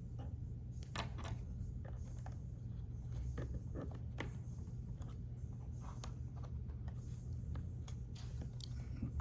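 Scattered small clicks and taps of hands working a laptop's LCD cable connector, flipping up its latch and easing the cable out, over a steady low hum.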